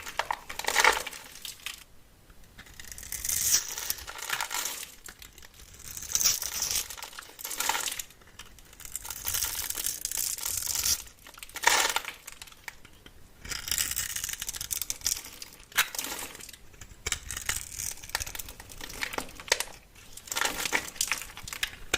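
Dry, crunchy material being crushed and cut by hand: irregular bursts of crackling and crinkling with short quieter gaps between them.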